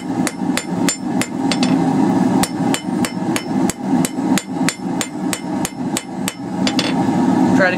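Ball peen hammer striking a quarter-inch round steel bar on an anvil in a quick, even run of blows, about three to four a second, knocking the corners off a square taper to round it.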